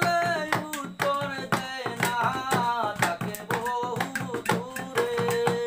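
A man singing a Bangla folk song unaccompanied by instruments, to a regular beat of hands drumming on a wooden tabletop; near the end he holds one long note.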